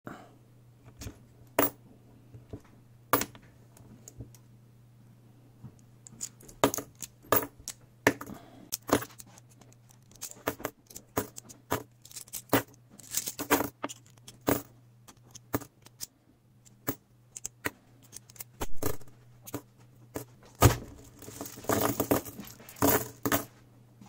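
Metal coins clinking against one another and dropping onto a cloth-covered table as a heap of magnet-attracted coins is picked up in clumps and pulled apart by hand. Scattered sharp clicks and jingles come thicker near the end.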